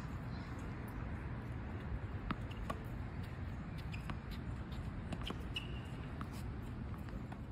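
Scattered faint knocks of tennis balls being struck and bouncing on a court, the sharpest two about two and a half seconds in, over a steady low outdoor rumble.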